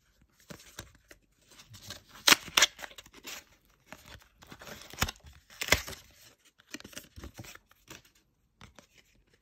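Paperboard gift card packaging being torn open by hand: irregular crackling tears with several sharper, louder rips, to free the plastic card inside.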